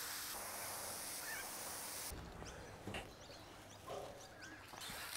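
Water pouring from a watering can, a soft, faint hiss that stops about two seconds in and starts again near the end.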